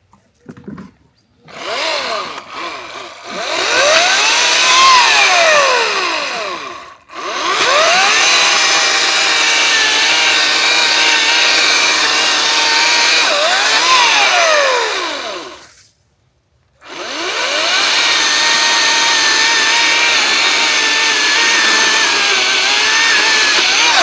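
High-torque electric chainsaw cutting downed white pine limbs in three long runs. The motor's pitch rises and falls as the chain loads up in the wood, with short stops between cuts.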